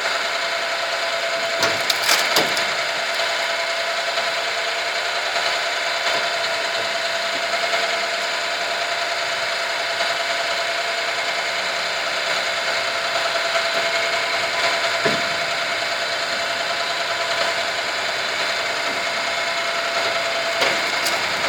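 Electric gearmotor driving a wheel-wash sludge conveyor under test, running steadily with a constant whine. A few short knocks, a cluster of them about two seconds in and single ones later.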